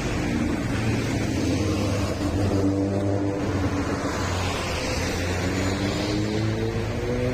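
Rusi Classic 250 motorcycle engine running through an aftermarket M4 exhaust muffler. Its pitch rises and falls with light revving, and it climbs again near the end.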